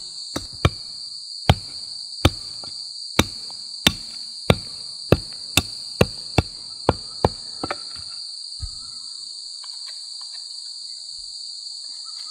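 Small hatchet chopping into a wooden log: a run of about a dozen sharp blows, roughly one every half second, that stops about eight seconds in. Under it runs a steady, high-pitched insect chorus.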